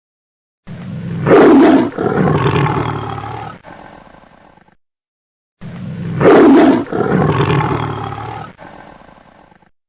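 A lion roaring: two identical roars of about four seconds each, each loudest just after it starts and then tailing off, with a second of silence between them.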